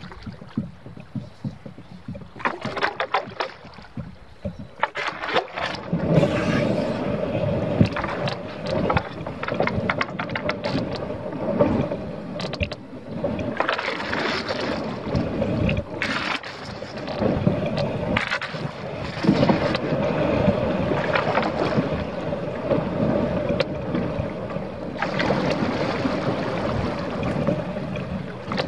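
Canoe moving down a creek: paddle strokes and splashing water, then from about six seconds in a louder steady rush of water along the hull.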